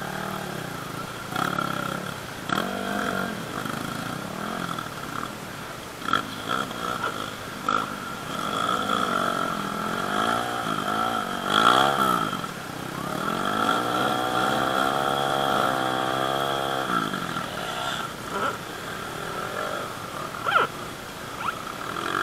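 Dirt bike engines revving, rising and falling in pitch several times, then holding a long wavering rev in the middle. A steady high-pitched drone runs underneath throughout.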